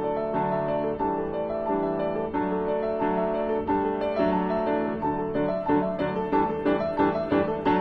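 Background piano music playing a steady run of notes.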